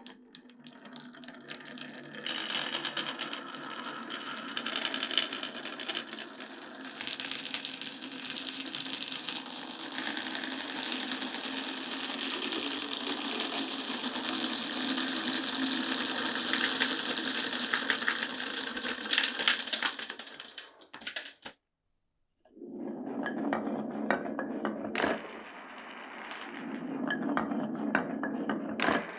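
Many glass marbles rolling and clattering down a wooden marble run, a dense stream of rapid clicks and rattles. About two-thirds of the way in it breaks off, then resumes as a lower rolling rumble of marbles on wooden track, with a couple of sharp clacks.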